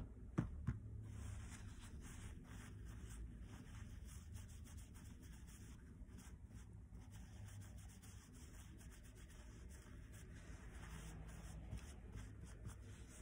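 White tissue rubbing back and forth over a silicone microblading practice skin, a faint steady scratchy wiping. Two sharp clicks come just before it starts, as the metal microblading pen is set down on the table.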